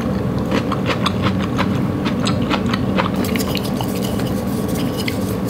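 Close-miked chewing of udon noodles: a steady wet mouth noise with many small sharp clicks and smacks. In the second half the clicks come thicker as chopsticks pick up noodles from a ceramic plate.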